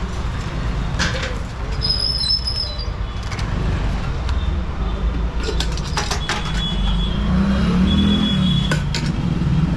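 Roadside traffic: vehicle engines running with a steady low rumble that swells about three-quarters of the way through, broken by a few sharp knocks and a couple of short high-pitched tones.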